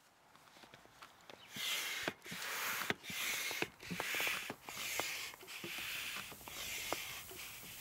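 Hand pump inflating an inflatable kayak: a quick run of whooshes of air, one per pump stroke, with light clicks and knocks from the pump.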